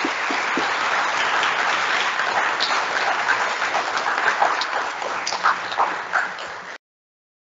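An audience applauding, a dense patter of many hands clapping with single claps standing out. It stops suddenly near the end.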